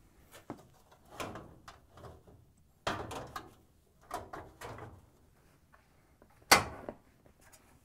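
Dryer front bulkhead being lifted over the drum lip and hung on its top screws: a series of clunks, rattles and scrapes of panel against cabinet, with one sharp knock near the end as it seats.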